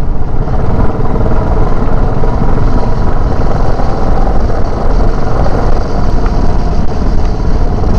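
Royal Enfield motorcycle cruising steadily on the highway. The engine runs under a continuous heavy rush of wind and road noise.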